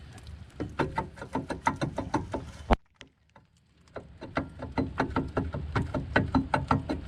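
Rapid metallic tapping, about six sharp taps a second, on a rear brake's steel dust shield as it is bent back away from the rotor, where it was scraping. The run is broken near the middle by one sharp click and a second of silence, then the tapping resumes.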